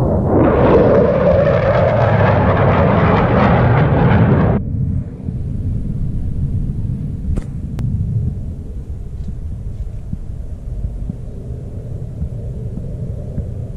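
Airplane noise, loud and full for about four and a half seconds, then cutting off suddenly to a lower, steady rumble of distant aircraft engines.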